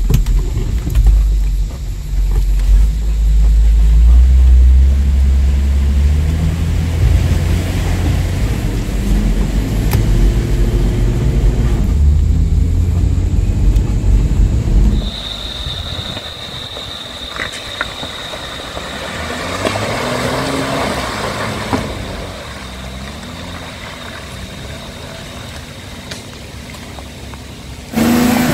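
In-cabin sound of a 4WD driving along a rough, wet dirt track: a loud, deep rumble from the engine and the vehicle working over the ground. About halfway through it suddenly drops to a quieter engine note, with a thin steady high whine and a few rises and falls in revs.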